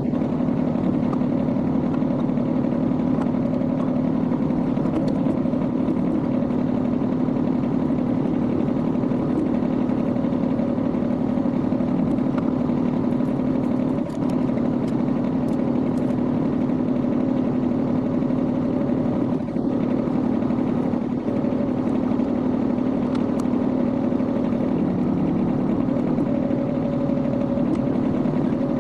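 A Kubota B21 tractor's diesel engine running steadily, a constant drone with a few faint ticks over it.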